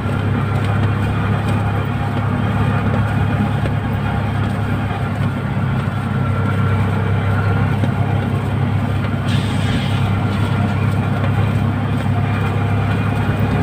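Steady engine drone with road and wind noise, heard from inside a small passenger vehicle cruising at speed. A brief hiss comes about nine seconds in.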